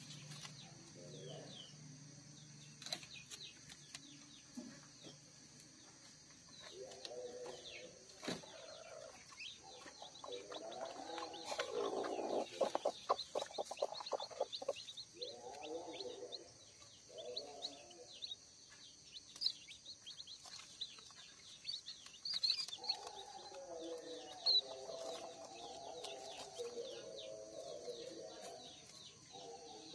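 Broody kampung hen clucking in repeated low runs of calls, loudest about halfway through, while her day-old chicks peep in short high chirps.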